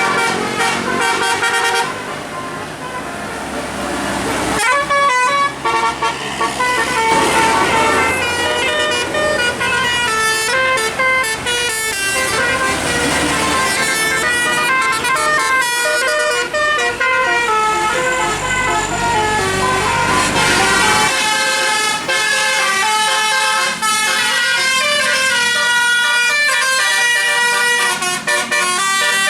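Bus telolet musical air horns playing tunes, note after note in quick steps, almost without a break. A low rumble runs underneath and cuts off about two-thirds of the way through.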